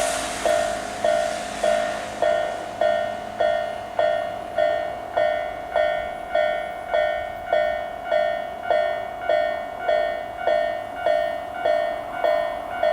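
Japanese railway level-crossing alarm bells ringing: a slow, even electronic ding about every 0.6 s. A second, higher-pitched crossing alarm joins about two seconds in, so the two bell sounds mix. The noise of a passing train fades out right at the start.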